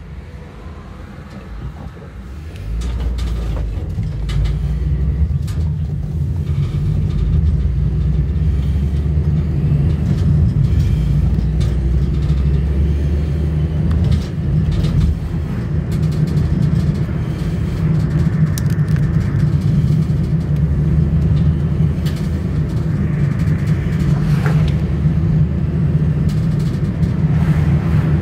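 Car engine and road noise heard from inside the cabin: a steady low rumble that steps up about two to three seconds in, as the car pulls away from a junction, and stays loud while it drives on.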